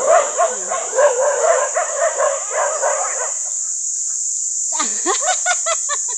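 Several dogs whining and yipping over one another for about three seconds. After a short pause comes a quick run of short high yelps. A steady high cricket chirring runs underneath.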